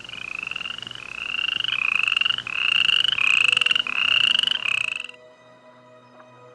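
An animal call: about seven short, rapidly pulsed trills in quick succession, each rising slightly in pitch, which stop suddenly about five seconds in. Faint background music continues after.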